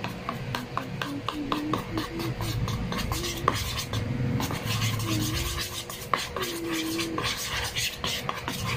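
A whisk stirring thin pancake batter round a bowl, scraping against the bowl in quick even strokes, about three a second.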